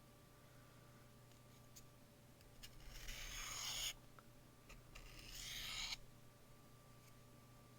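A knife's S35VN steel blade drawn along a Sharpal 162N diamond sharpening stone in two long rasping strokes, each growing louder and then stopping abruptly. These are light strokes on one side to remove the burr while reprofiling the edge.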